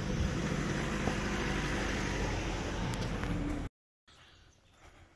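A vehicle's engine running steadily with a low hum. It cuts off abruptly about three and a half seconds in, giving way to faint background sound.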